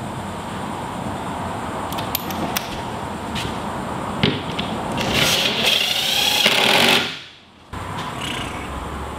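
Cordless drill running for about two seconds, driving a bolt to fasten a climbing hold to the wall, and cutting off suddenly; a few light clicks and a knock of the hold against the wall come before it.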